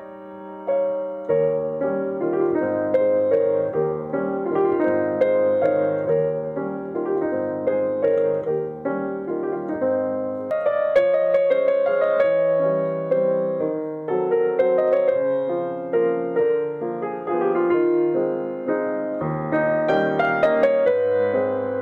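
Solo piano playing a tune, melody over lower bass notes that come in about a second in.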